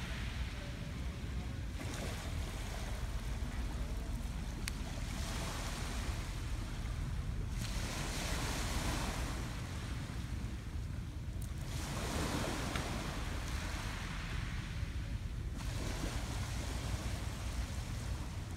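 Sea waves washing onto a pebble beach, the hiss swelling and fading four times, every three to four seconds, over a steady rumble of wind on the microphone.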